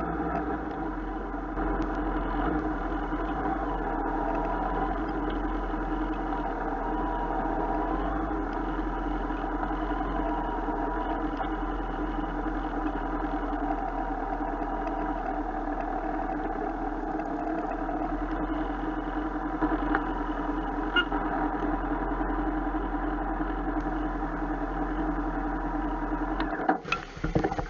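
Motorcycle engine running steadily at low speed as the bike rolls slowly, picked up by a handlebar-mounted action camera. Near the end a few knocks sound and the steady engine note breaks off.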